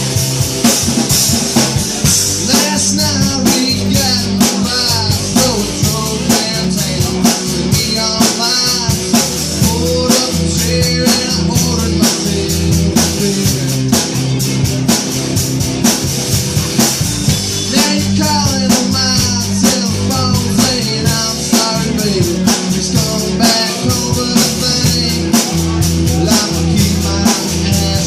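Live band playing a song, with a drum kit keeping a steady beat under guitar.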